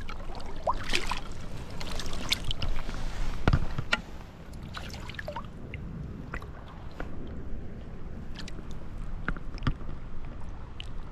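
Water splashing and sloshing as a trout moves in a landing net held in the creek, over a low rush of flowing water. The splashing is busiest for the first four seconds, then thins to scattered small splashes and drips.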